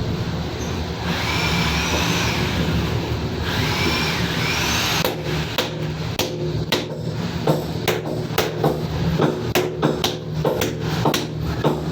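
A whirring with gliding whines for the first few seconds, then a run of irregular sharp knocks, about two a second, like a hammer striking on a construction job, over a steady low hum.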